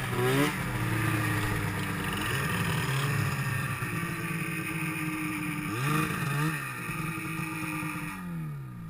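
Two-stroke snowmobile engines idling, with short blips of throttle about two, three and six seconds in. Near the end the engine note falls in pitch and fades as an engine winds down.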